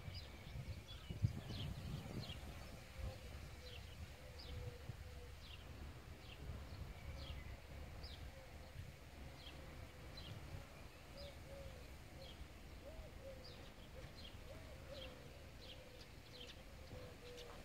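Faint outdoor ambience of small birds chirping, short high notes repeating about once or twice a second, over a faint low steady hum. A low rumble and one short thump come in the first two seconds.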